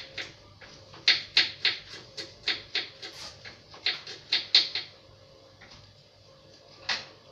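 Knife blade chopping on a cutting board: quick, sharp strokes about three to four a second, stopping about five seconds in, with one last stroke near the end.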